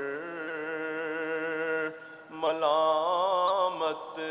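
A man's voice reciting an Urdu nazm as an unaccompanied melodic chant. He holds two long, wavering sung phrases, with a short breath break about two seconds in.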